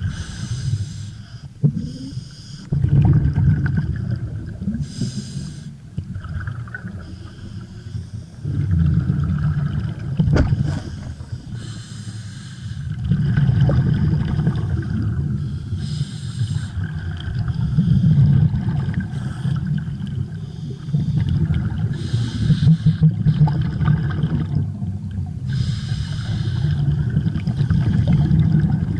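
Scuba diver breathing through an open-circuit regulator underwater: a short hiss of each inhalation, then a longer low rumble of exhaled bubbles, repeating every few seconds.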